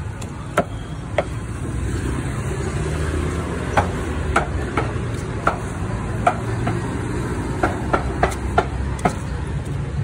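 Sharp knocks at irregular intervals, about a dozen and bunched in the second half, over a steady low rumble.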